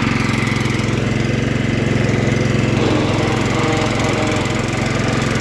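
Poulan Pro riding mower's 15 hp Kohler Command single-cylinder engine running steadily and evenly, a healthy-running engine.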